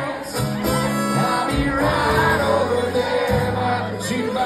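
Live country band playing an instrumental break: a fiddle carries the melody over strummed acoustic guitar and the band's low end.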